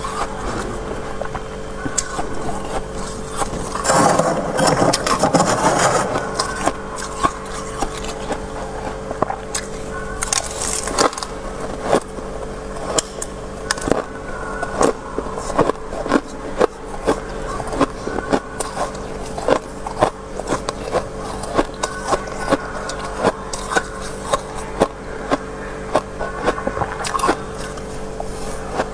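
Freezer frost being scraped and crunched with a metal spoon and scraper. A long scraping pass runs about four seconds in, followed by a steady run of short, crisp crunches about one or two a second.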